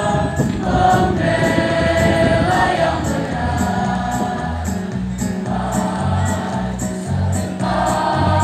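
A mixed school choir singing an Indonesian patriotic song, accompanied by an electronic keyboard with a steady low note and a ticking beat about twice a second.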